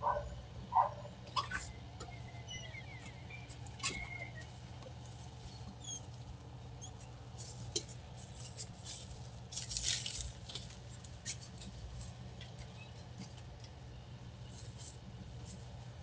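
Footsteps on a wooden porch and a plastic shopping bag rustling, picked up by a doorbell camera's microphone over a steady low hum. A few short squeaks and clicks come in the first seconds, and the rustling is thickest about halfway through.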